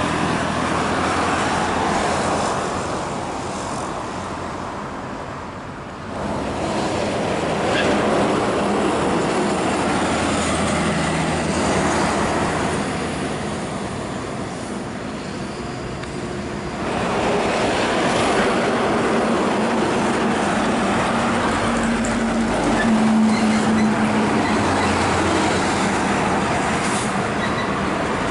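Heavy diesel trucks pulling multi-axle grain trailers passing one after another: engine and tyre roar swells as each goes by and eases off in between, dipping about six seconds in and again around fifteen seconds. A steady engine hum runs through the later passes.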